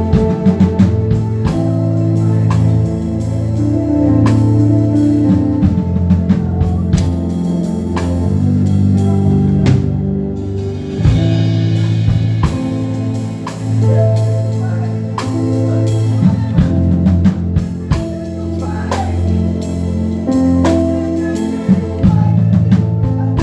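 Instrumental music with guitar and a drum kit: held low notes changing every second or so over a steady beat of drum hits.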